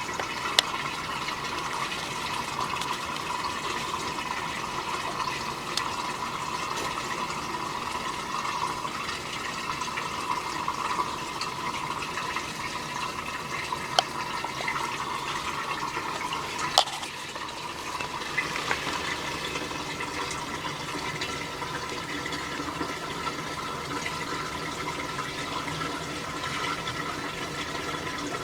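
Washing machine running with a steady rush of water, with a few sharp clicks; about two-thirds of the way through the sound shifts as the machine moves to another stage.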